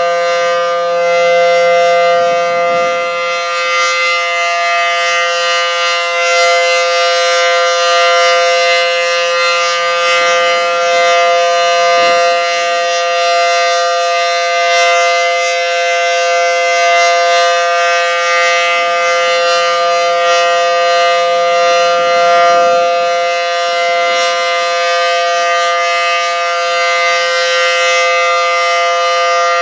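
Federal Signal SD10 outdoor warning siren sounding a loud, steady two-note chord at constant pitch, with no rise or fall, during its monthly test.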